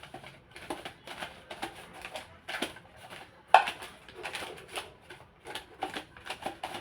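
Pastry brush dabbed and scraped over a newspaper lining in a bowl, spreading butter: irregular scratchy strokes and paper rustles a few times a second, with one sharper knock about halfway through.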